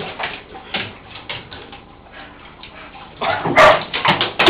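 Pit bull panting in short, quick breaths about three or four a second, with louder bursts of noise from about three seconds in.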